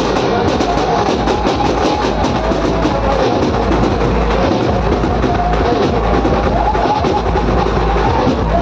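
A procession band plays loud music over a truck-mounted stack of loudspeakers, with fast, dense drumbeats and heavy bass under a sustained melody.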